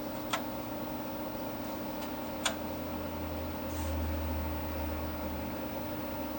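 Steady hum of a vintage desktop computer's fan, with two sharp keyboard key clicks about two seconds apart and a low rumble swelling briefly past the middle.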